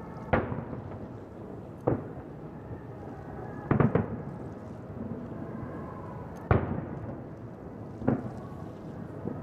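Aerial firework shells bursting overhead: a series of sharp booms, one every one to two seconds, with two in quick succession near the middle.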